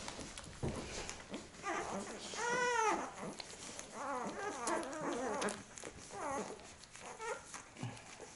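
One-week-old Siberian husky puppies whimpering while they nurse: a string of short rising-and-falling cries, some overlapping, with one longer, louder cry about two and a half seconds in.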